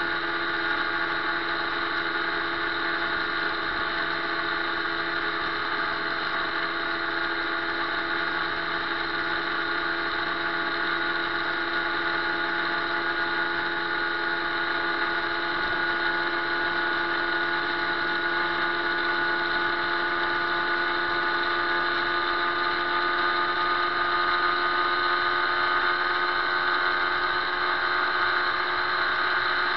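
Motorcycle engine running steadily at cruising speed on the highway: an even drone with several held tones, getting slightly louder after the middle.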